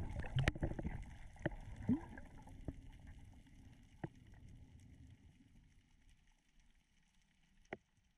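Water splashing and bubbling around a waterproof camera housing, loud at first and dying away over several seconds, with a few sharp clicks scattered through it.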